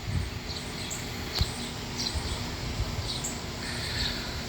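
Short high-pitched chirps repeating about twice a second from a small animal, over a faint steady hum.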